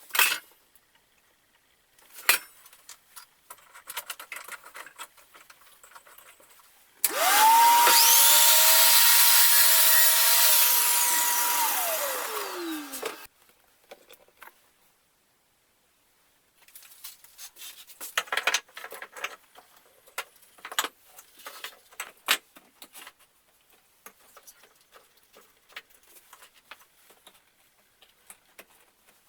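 An electric power tool's motor spins up about seven seconds in, runs at a steady high whine for about five seconds, then winds down as it is released. Around it are scattered light knocks and handling sounds.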